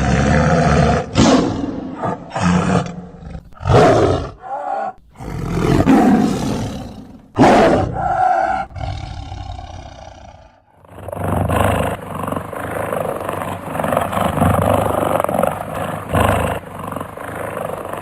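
Big cats roaring: a run of separate loud roars, then after a brief drop about eleven seconds in, a longer continuous roaring call with a steady high hiss above it.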